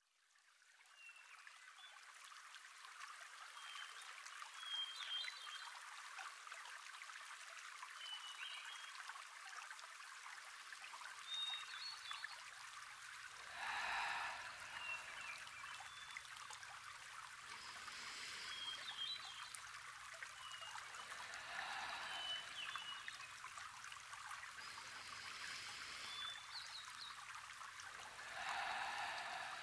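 Soft trickling water fading in, with scattered short high chirps over it. About halfway in, fuller swells of the water sound begin to come every few seconds, and a low steady hum joins underneath about a third of the way in.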